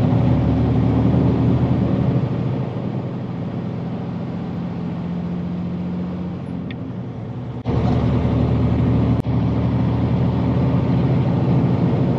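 Heavily loaded dump truck's diesel engine running steadily while under way. It eases off about two seconds in and comes back up abruptly about three-quarters of the way through.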